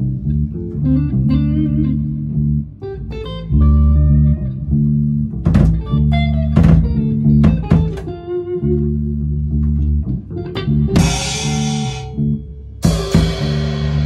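Electric guitars and a drum kit playing together, with long, held low notes, a few drum hits and two cymbal crashes near the end.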